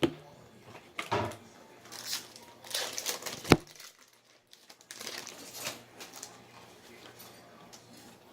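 Trading-card pack wrappers crinkling and rustling while packs are opened and cards handled, with a few sharp clicks and knocks, the loudest about three and a half seconds in.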